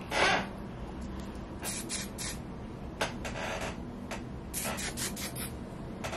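Drybar Money Maker aerosol hairspray spraying in short hissing bursts: one louder half-second spray at the start, then several shorter, fainter sprays.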